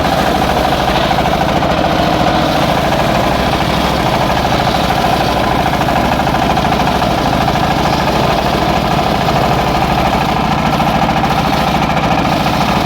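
Engine-driven circular sawmill running steadily with an even, unbroken engine drone.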